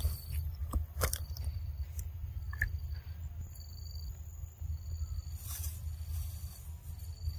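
Macaques handling and chewing chunks of mango, a few short wet clicks and smacks, over a steady low rumble. A faint, short, high chirp repeats about once a second.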